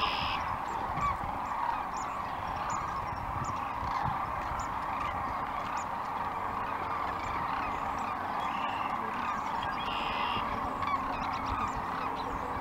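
Massed chorus of sandhill cranes calling, thousands of voices blending into one steady din with scattered higher calls on top.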